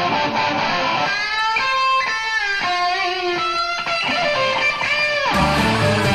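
Rock song in which the bass and drums drop out, leaving an electric guitar playing held notes on its own. The full band comes back in about five seconds in.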